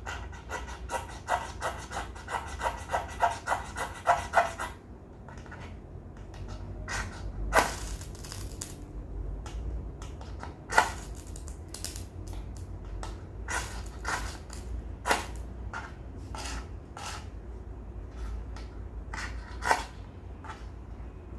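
Ferrocerium fire steel scraped with the awl of a Victorinox Alox pocket knife: a quick run of short scrapes for the first four to five seconds, then separate harder strikes every few seconds, struck to throw sparks onto wood shavings.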